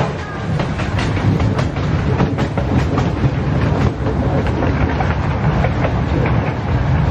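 Miniature ride-on train rolling along its narrow-gauge track, with a steady rumble and the wheels clicking on the rails every fraction of a second.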